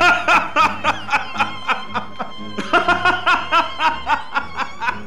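Laughter in quick rhythmic bursts over background music with strings.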